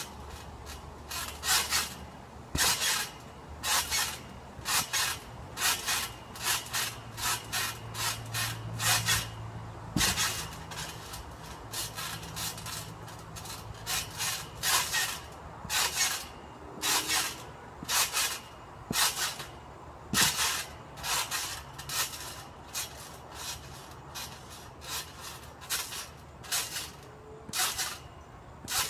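Trampoline being bounced on: the mat and springs give a short rush of noise with each bounce, in a steady rhythm of about one a second, sometimes two close together.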